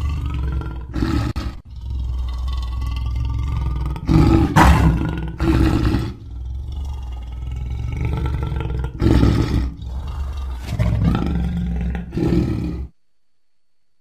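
Lion roaring: a long run of deep roars with several louder calls standing out, cutting off abruptly about a second before the end.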